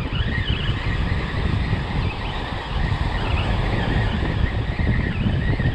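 Wind buffeting the microphone with a loud, gusty low rumble, over surf washing on the beach.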